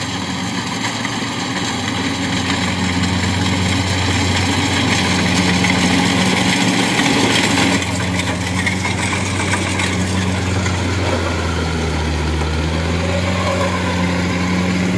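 Kubota DC-70 Plus combine harvester's diesel engine running steadily under load as it cuts lodged rice. The engine note dips about three-quarters of the way through, then picks back up.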